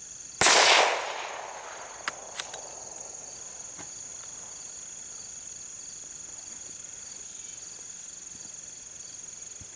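A single shot from a Savage Model 93R bolt-action rifle in .17 HMR: one sharp crack with an echo trailing off over about a second. Two light clicks follow about two seconds in, over steady insect chirring.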